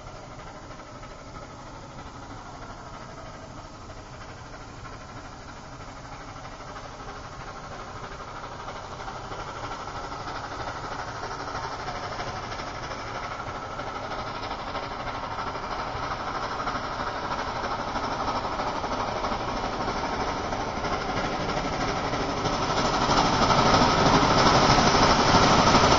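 Nickel Plate Road 765, a 2-8-4 Berkshire steam locomotive, approaching under power, its exhaust beat growing steadily louder as it nears and rising sharply near the end.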